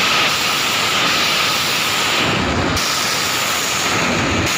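Loud, steady rushing hiss like escaping steam, with a faint thin whistle-like tone running through it.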